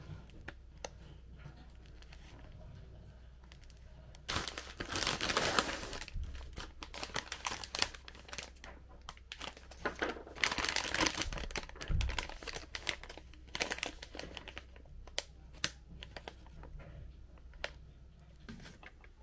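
Plastic packaging of a microwave meal tray crinkling and rustling as it is handled and unwrapped from its bag, loudest in two spells, around five seconds in and again around ten to twelve seconds in, with scattered small clicks and taps between.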